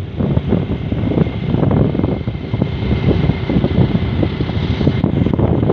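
Motorcycle being ridden at speed, its engine running steadily under heavy wind buffeting on the microphone.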